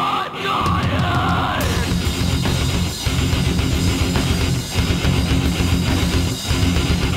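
Death metal/nu-metal/hardcore band playing live, loud: a heavy electric guitar riff over pounding drums. A screamed vocal breaks off about a second and a half in, and the band plays on without vocals.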